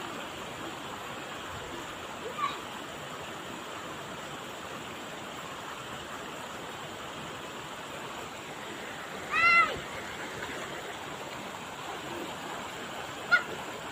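Shallow mountain river flowing steadily over rocks and stones. About two-thirds of the way through a single short, high-pitched call rings out over it.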